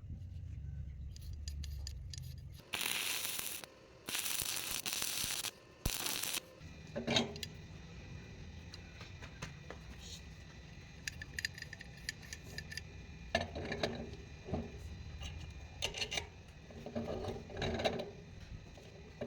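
Metal clicks, clanks and ratchet-like mechanism noises from a hand-operated iron bending tool being worked, with a few short bursts of rushing, scraping noise early on and ringing metal knocks later.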